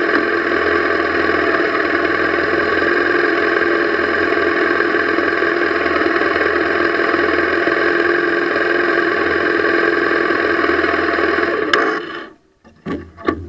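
Motorcycle engine idling steadily, then switched off with a click about twelve seconds in, leaving only a few faint knocks.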